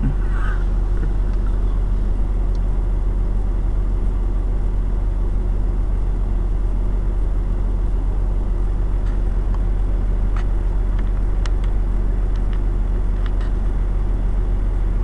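Vehicle engine idling steadily, a constant low hum heard from inside the stopped car's cabin, with a few faint ticks in the second half.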